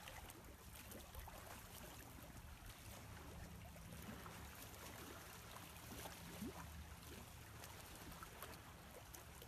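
Faint, steady low drone of a distant motorboat engine, over a soft outdoor hiss.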